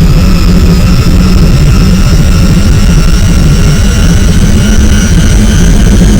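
Designed jet engine sound effect: a heavy, steady low rumble under a turbine whine of several tones that rise slowly in pitch as the engine spools up.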